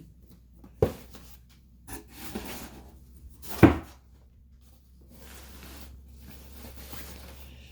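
An open cardboard shoe box and its contents being handled: a sharp knock about a second in, a louder knock near the middle, then soft rustling.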